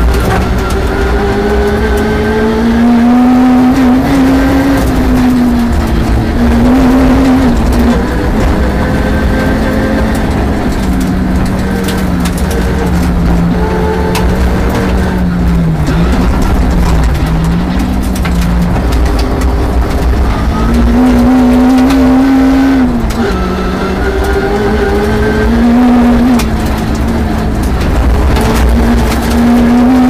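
Peugeot 306 rear-wheel-drive rally car's engine, heard from inside the cabin, revving hard as it drives a gravel stage. The pitch climbs and falls again and again, dropping sharply at several gear changes, while gravel rattles under the car.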